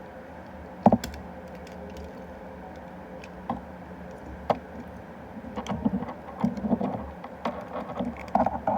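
Hard plastic toy parts clicking and clattering as they are handled: one sharp click about a second in, a couple of single knocks, then a run of small clicks and rattles near the end, over a faint steady hum.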